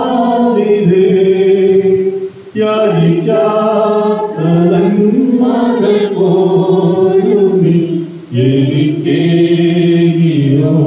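Slow unaccompanied hymn sung in long held phrases, led by a man's voice through a microphone. There are short breaks between phrases about two and eight seconds in.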